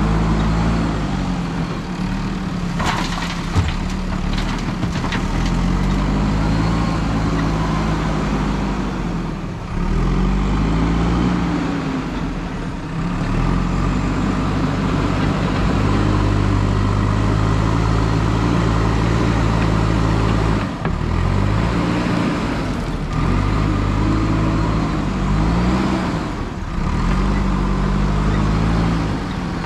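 JCB 3DX backhoe loader's diesel engine working under load, revving up and falling back over and over as the loader digs and lifts. One sharp knock a few seconds in.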